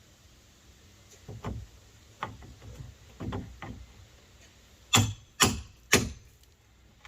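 Several dull knocks on wood, then three sharp, loud strikes about half a second apart, as old nailed deck boards are worked loose.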